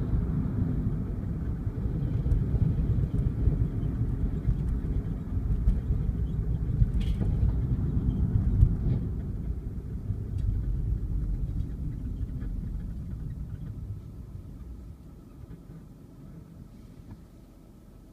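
Low road and engine rumble heard inside a moving car's cabin. It fades away over the last few seconds as the car slows to a stop.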